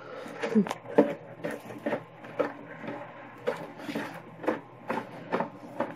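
Irregular clicks, knocks and scrapes from working a Christmas tree stand's screw loose while the tree and its branches are handled.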